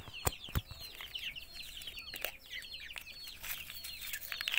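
Chickens chirping: many short, high, falling calls overlapping one another, with two sharp knocks under a second in.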